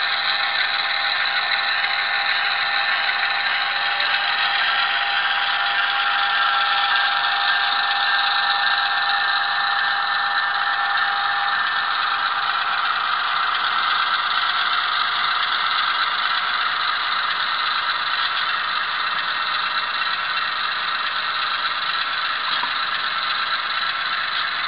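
HO scale model diesel locomotive's sound decoder playing a steady diesel engine running sound through its small speaker. The sound is thin, with almost no bass.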